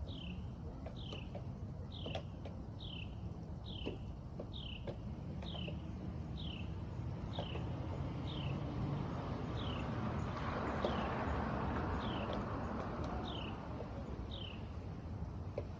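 A bird calling over and over: a short high note sliding downward, about two a second. Partway through, a broad rushing noise swells and then fades.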